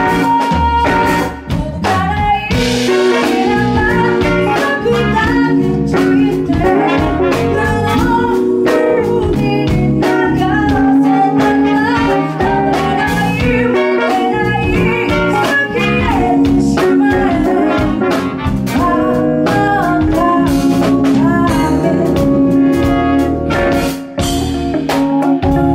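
Live band playing a song: a woman's lead vocal with backing singers over trumpet and saxophone, hollow-body electric guitar, keyboard and drum kit.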